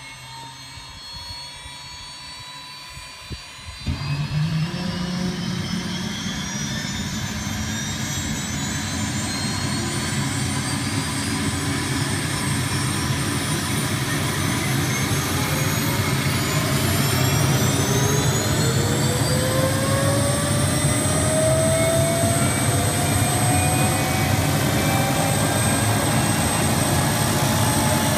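Hughes OH-6 helicopter's turboshaft engine starting up. A faint whine at first, then about four seconds in the sound suddenly grows louder and fuller. After that, several whines climb steadily in pitch as the turbine spools up and the main rotor speeds up.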